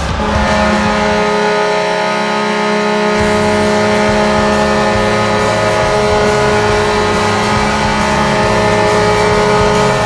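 Kalamazoo Wings arena goal horn blowing one long, steady blast, a chord of several tones held unbroken. A low, irregular rumble joins beneath it about three seconds in.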